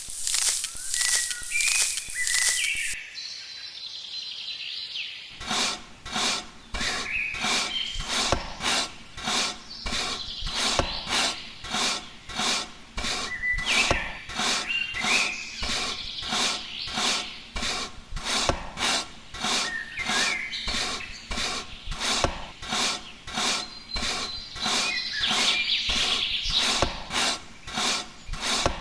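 Rhythmic rasping strokes of a hand tool worked back and forth on wood, about two strokes a second. The strokes pause briefly a few seconds in, then resume.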